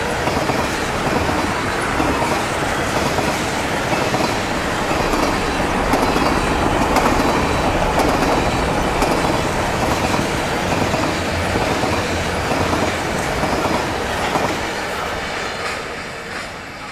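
Canadian National freight train's tank cars and covered hoppers rolling past at close range, steel wheels running over the rails in a steady rumble. The sound fades over the last couple of seconds as the end of the train goes by.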